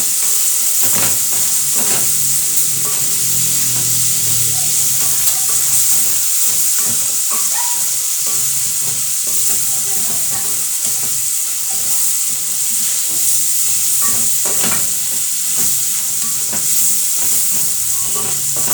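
Tripe frying in oil with onions and spices in a pot, sizzling steadily while it is stirred, with a few knocks of the spoon against the pot.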